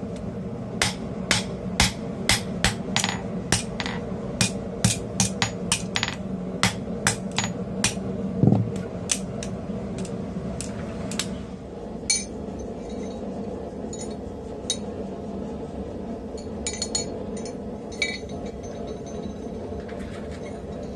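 Blacksmith's hand hammer striking a red-hot steel bar on a steel swage block, about two to three blows a second, with one heavier thud near the middle. The hammering stops after about ten seconds, leaving only a few light metal clinks.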